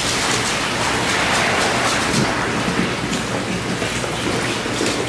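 Steady hiss of falling or running water, with faint ticks through it.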